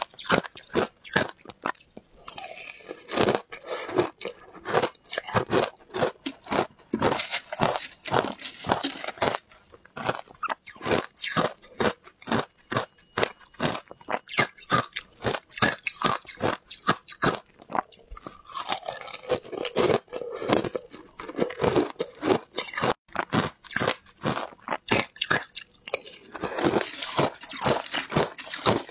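Close-miked crunching of frozen shaved-ice chunks bitten and chewed in the mouth: a dense run of rapid, sharp cracks and crackles, bite after bite.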